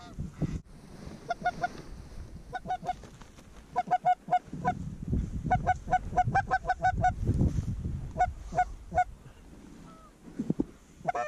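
Canada goose honking: quick runs of short honks and clucks, busiest in the middle, ending with one longer honk that falls off. Low rumbles sound underneath in the middle.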